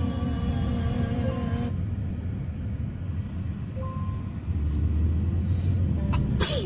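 Steady low rumble of a car on the move, heard from inside the vehicle, growing louder about four and a half seconds in, with a sharp click near the end. Music plays for the first second or two, then cuts off.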